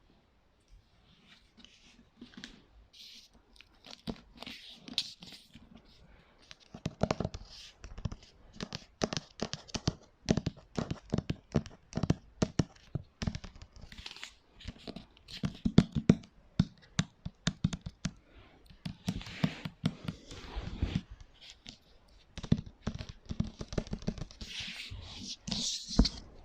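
ASMR tapping and knocking on assorted objects, sparse at first, then quick irregular runs of taps from about six seconds in.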